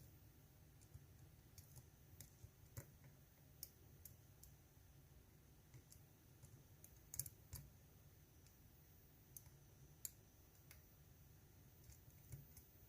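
Faint, irregular clicks of a lock pick working the pin stacks of a GEGE euro cylinder, a little louder about seven and ten seconds in.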